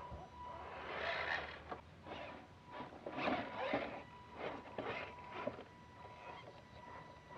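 Electric RC Clodbuster monster truck on a test drive on silicone-insert tires: irregular bursts of scraping and crunching as the tires scrabble over the ground. Under them runs a steady high-pitched whine.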